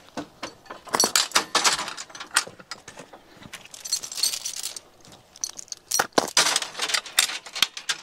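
Metal logging chain rattling and clinking as it is handled at a log, in three bursts of jangling with sharp clicks of links and hooks.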